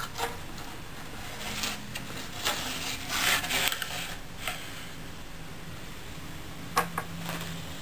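A hand presses and slides a split-bamboo rod strip into the groove of a steel planing form, making a string of short dry scraping rustles, busiest about three seconds in. Two sharp clicks come near the end.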